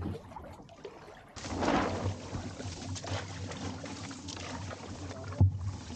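A paddle being dipped and pulled through shallow lake water beside a small trimaran's hull, with uneven splashing and dripping from about a second and a half in. A single sharp knock comes near the end.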